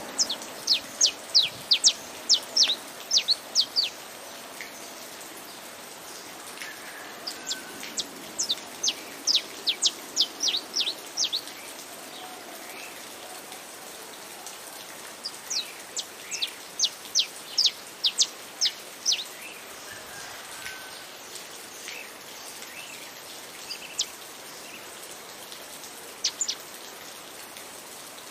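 Saffron finch (canário-da-terra) singing: three long runs of quick, sharp, high notes, then a few single notes near the end, over a steady hiss of rain.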